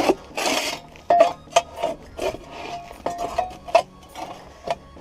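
Packed dirt being scraped and knocked out of an excavator's steel track undercarriage with a hand tool: irregular rasping scrapes, sharp knocks and a few short metallic clinks.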